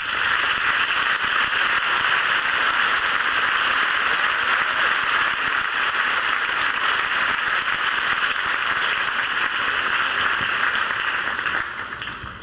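Crowd applauding loudly, starting suddenly and dying away near the end.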